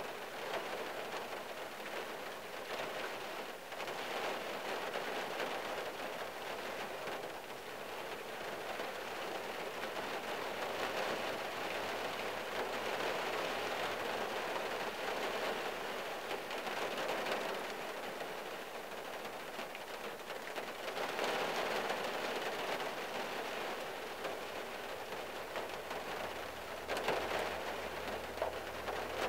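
Steady rain falling on the roof and windshield of a 1974 Plymouth Valiant, heard from inside the car's cabin, swelling and easing in intensity. Near the end a car drives past with a low rumble.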